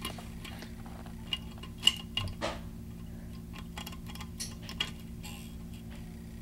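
Small metallic clicks and ticks from a foil-wrapped key-blank impressioning tool being worked in a pin-tumbler lock cylinder, irregular and scattered, the loudest a little under two seconds in.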